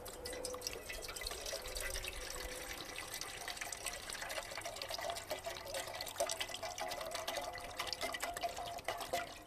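Water pouring in a steady stream from a bottle into a metal camping pot, splashing, with a pitch that rises slowly as the pot fills.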